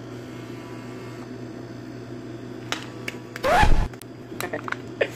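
Vending machine humming steadily while its bill acceptor handles a one-dollar bill: a few clicks, then a short motor whirr about three and a half seconds in, rising in pitch, followed by more clicks. The acceptor feeds the bill back out, rejecting it.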